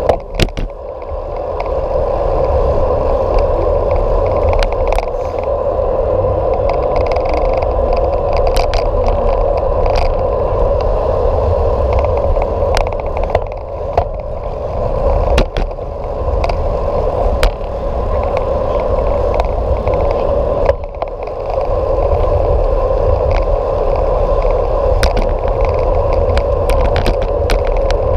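A bicycle rolling on a paved road, heard from a camera mounted on the bike: steady tyre and wind noise with frequent small clicks and rattles from bumps in the surface. The noise dips briefly a few times.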